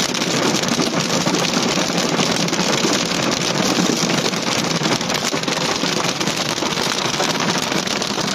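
Heavy rain drumming steadily on a car's roof and windows, a dense patter of many small impacts, heard from inside the car.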